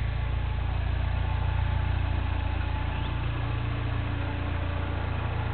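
A 2008 Mini Cooper Clubman S's turbocharged 1.6-litre four-cylinder idling steadily through a stainless Magnaflow cat-back exhaust: a low, even, pulsing note.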